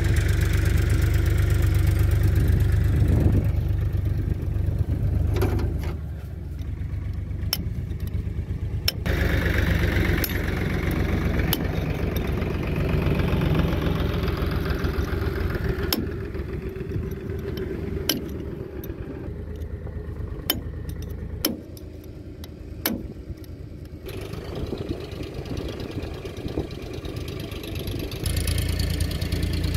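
About a dozen sharp, irregularly spaced metal taps from a steel drift being struck to seat a tapered roller bearing on a tractor's front axle spindle, over a steady low engine rumble.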